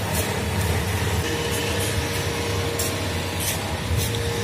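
Steady background hum and hiss, with a few faint metallic clicks of gearbox selector forks and shafts being handled.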